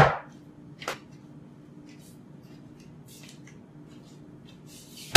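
A plastic milk jug is set down with a thump on a granite countertop, followed by a small knock about a second later and faint scattered ticks. A second thump comes near the end, and a faint low hum runs underneath.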